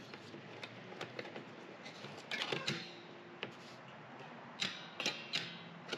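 Metal folding shelf brackets clicking and rattling as their fold lock is worked to try to release it, with a cluster of clicks about two and a half seconds in and three sharper clicks near the end.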